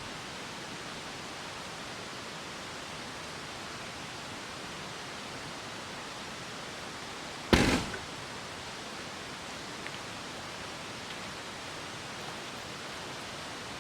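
Steady, even hiss of outdoor background noise, with one loud short knock about seven and a half seconds in.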